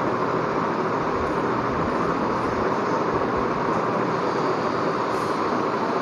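Steady rushing background noise, even and unbroken, with no speech.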